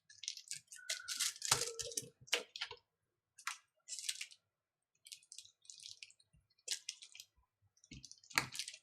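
Small clicks, taps and scrapes of fingers and tools working a digitiser ribbon-cable connector into its socket on a tablet's circuit board, coming in short scattered bursts with brief pauses.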